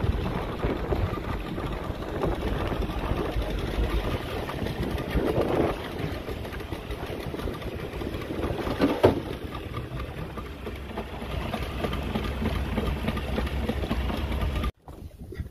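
Small fishing boat's engine running steadily, with wind and water washing along the hull, and a single sharp knock about nine seconds in. The sound cuts off abruptly near the end.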